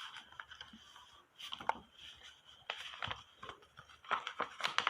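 A sheet of paper rustling and crinkling as it is folded and creased by hand, in short scattered rustles and crackles.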